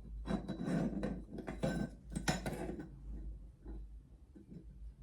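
Handling noises while cord is tied into a knot on a bird-cage wind chime: irregular rubbing and light knocks, busy for about three seconds and then sparser and quieter.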